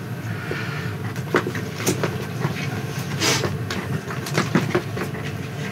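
A steady low mechanical hum, with scattered short clicks and rustles of handling over it.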